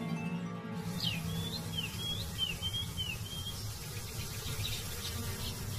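A bird singing a quick run of short whistled notes, most sliding down in pitch, starting about a second in, with fainter chirps later and a held music note fading underneath at the start.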